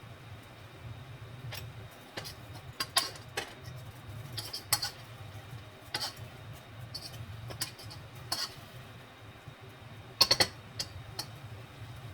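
Kitchen utensils clinking and tapping against dishes in about a dozen irregular light clicks, several close together near the end, over a steady low hum.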